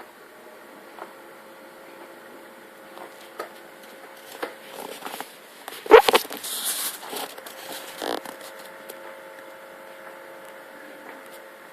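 Bosch SMS69M58EU dishwasher running on its TurboSpeed cycle: a faint steady hum with scattered light clicks. About six seconds in there is a loud knock followed by about a second of hiss, and a smaller knock comes near eight seconds.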